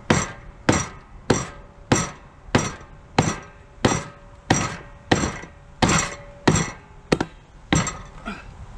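Hammer blows on the metal of a riding lawn mower, about a dozen and a half strikes at an even pace of roughly one and a half a second. The middle blows carry a ringing metallic note, and the last blows near the end are weaker and less regular.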